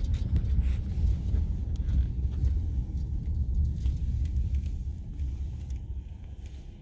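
Low, steady rumble of a road vehicle, fading over the last second or two.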